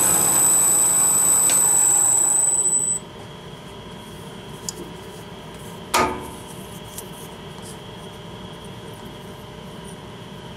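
Wood lathe running with a high whine while a cloth is held against the spinning wooden top body, switched off about three seconds in so that the sound cuts out. About three seconds later comes a single sharp knock with a brief ring as the turned piece is taken out of the metal collet chuck.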